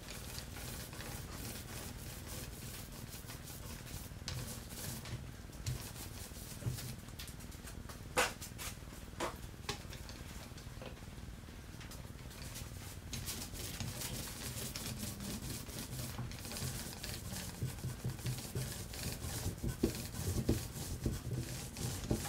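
Paint roller rolling primer onto a PVC sheet lid: a steady, sticky crackle from the roller nap. There are a few sharper ticks about eight and nine seconds in.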